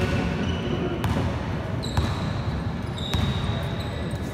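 A basketball bouncing on a hardwood gym floor, about once a second, over the steady noise of a large echoing hall.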